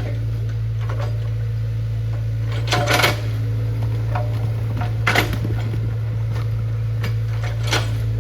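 A steady low machine hum, with three short metallic clanks a couple of seconds apart.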